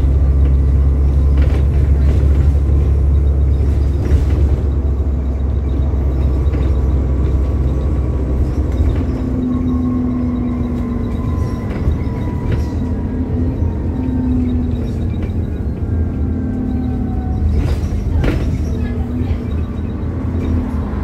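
Diesel bus engine and drivetrain heard from on board while the bus is under way: a steady heavy rumble, with a whine that slowly falls in pitch about halfway through and a few short rattles.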